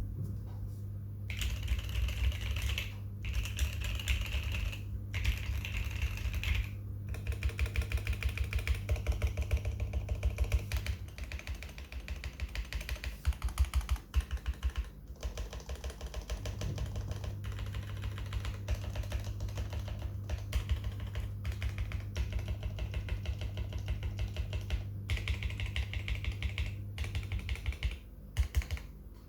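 Custom mechanical keyboard being typed on fast and continuously: lubed and filmed NK Cream linear switches on an FR4 plate with foam between plate and PCB, under MT3 keycaps, giving a steady run of key clacks broken by a few short pauses.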